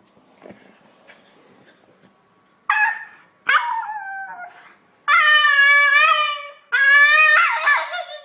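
A dog howling: two short falling yelps, then two long, high howls of about a second and a half each.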